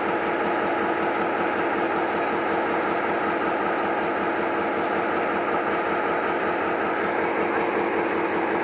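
EMD G22 diesel locomotive's engine running steadily at low throttle, an even unchanging drone.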